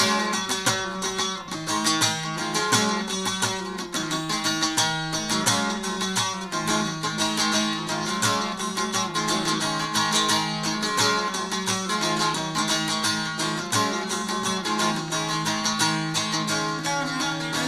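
Bağlama (Turkish long-necked saz) played solo with a plectrum in fast, dense strummed runs, a steady low drone sounding under the melody: an instrumental break in a folk song.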